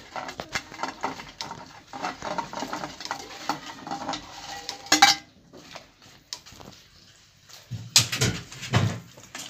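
A metal spoon scraping and clinking against a steel plate and a steel cooking pot as dried brinjal strips are pushed into the pot, with a louder clank about halfway through and duller thuds near the end.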